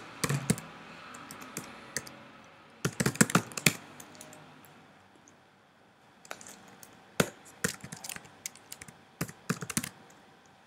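Typing on a computer keyboard: short bursts of quick keystrokes with pauses between them.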